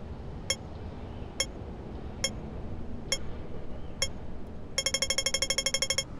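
Pedestrian crossing signal beeping slowly, about one short beep a second, then switching near the end to a fast run of beeps, a dozen or more a second, for just over a second. The fast beeping is the usual audible cue that it is time to cross. A low rumble of traffic runs underneath.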